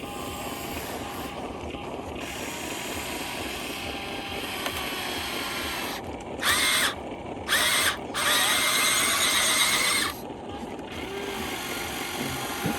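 Small electric motors of a toy RC excavator whirring in three short high-pitched bursts, the longest near the end, over a steady background hum.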